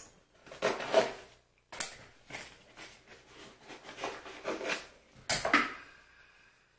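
A box being opened by hand, its sides worked loose: irregular scrapes, rustles and taps of packaging, with the loudest sounds about a second in and again near the end.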